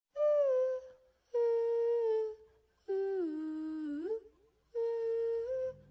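A voice humming four short held notes with pauses between them, each note sliding slightly in pitch. The third note dips lower and then glides back up at its end.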